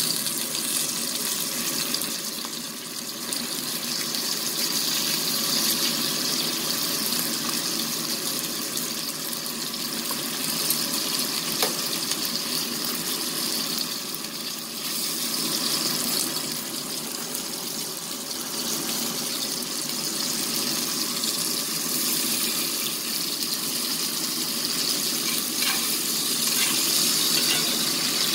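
Bone-in ribeye steak searing in a hot cast-iron skillet: a steady sizzle of hot fat and foaming butter, with a few faint clicks.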